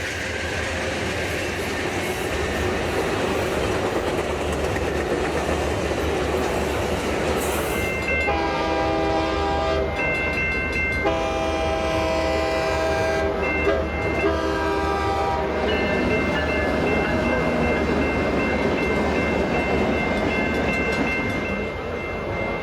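Scale model train's sound system playing a running locomotive with a steady rumble. From about eight seconds in, a multi-note diesel horn sounds four times, the last blast long and held to the end.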